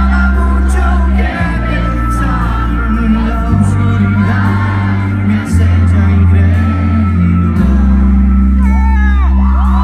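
Mexican rock band playing live, heard loud from the audience: a singer's voice over the band, with a deep bass line that shifts to a new note about every two seconds.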